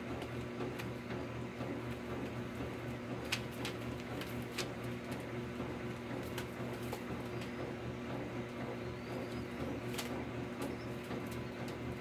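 A steady low hum with a few pitched tones, broken by scattered short sharp clicks and flutters as a young bird flaps its wings while being hand-fed.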